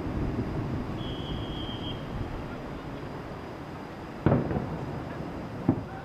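Distant fireworks shells bursting: a sharp boom about four seconds in, the loudest sound, and a smaller one over a second later, over a steady low rumble. A brief high whistle sounds about a second in.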